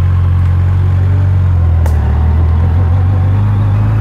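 Yamaha FJR1300's inline-four engine running steadily at low speed on a dirt track, a constant low hum, with a single sharp click about two seconds in.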